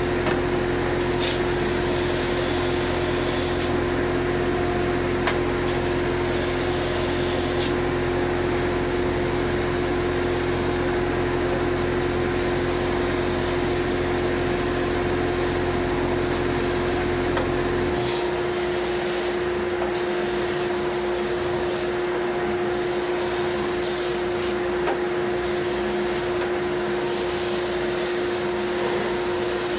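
Electric sander running steadily, with a wooden box pressed against the abrasive again and again so that a hissing scrape comes and goes over the motor's hum. About two-thirds of the way through a lower hum drops out while the sander keeps running.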